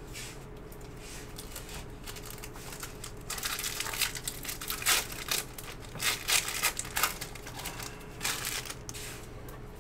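Foil trading-card pack wrapper being torn open and crinkled by hand: crackling starts about three seconds in, runs in clusters for some four seconds, and one more crinkle comes near the end.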